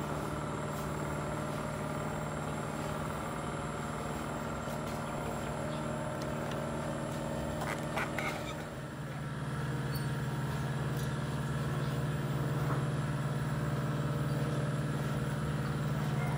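A steady low mechanical hum, a little louder after about nine seconds, with a few brief cardboard rustles and clicks about eight seconds in as a replacement heating element's box is opened.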